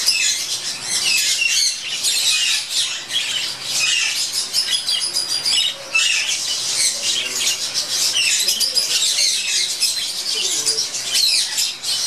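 A large flock of budgerigars chattering continuously, with many high chirps and warbles overlapping.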